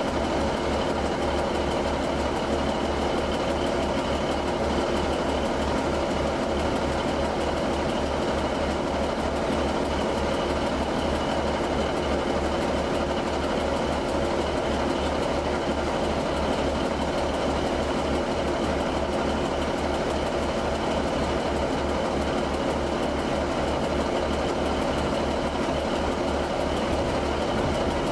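Train's diesel engine idling: a steady running sound with a fast, even low throb.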